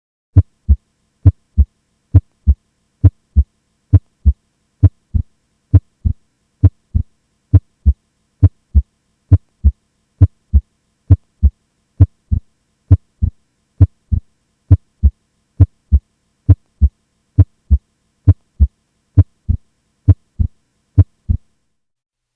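Normal heart sounds heard through a stethoscope recording: a steady lub-dub of S1 and S2 at about 70 beats a minute. S2 is the higher-pitched second sound, made by the closing aortic (A2) and pulmonic (P2) valves, and it splits normally during inspiration.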